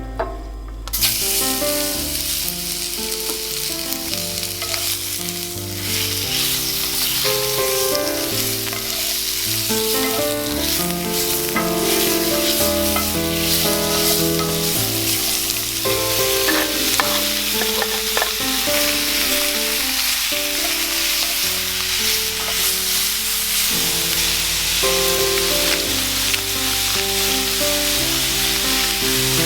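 Food sizzling steadily in a hot frying pan as it is stir-fried, starting about a second in. Background piano music plays throughout.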